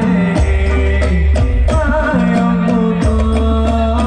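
Live sholawat music through PA loudspeakers: men's voices singing a held, ornamented melody over regular hand-drum beats and steady low bass notes.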